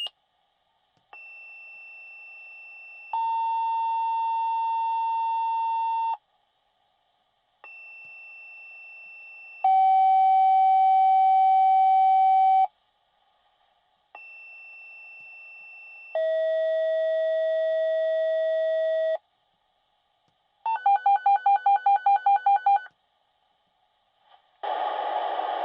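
Fire dispatch radio tone-outs: three two-tone sequential pages in a row, each a quieter high tone followed by a louder, longer, lower tone, with a different tone pair for each page. Then come about two seconds of rapid pulsed beeping, about four beeps a second, and a dispatcher's voice starts near the end.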